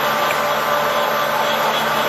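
Polamco TUG-40 gap lathe running steadily at 400 RPM spindle speed, a steady hum with the even whirr of the headstock gearing, sounding healthy.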